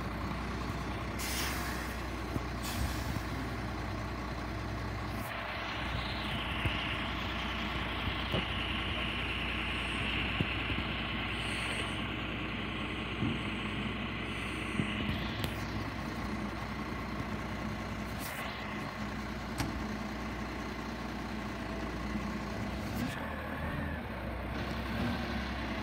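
Garbage truck's diesel engine running steadily, with a long hiss from about five seconds in to about fifteen seconds in and a few short sharp bursts and clanks along the way.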